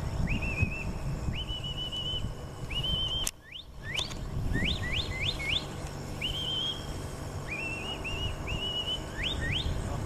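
Handler's stockdog whistle commands to a working border collie: runs of two to four quick rising whistles alternating with short held flat whistles. A brief dropout with a couple of clicks comes about a third of the way in.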